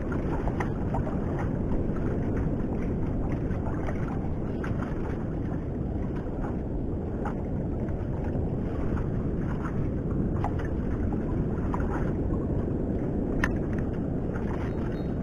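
Steady wind rumble on the microphone over open sea, with a few faint short clicks scattered through it.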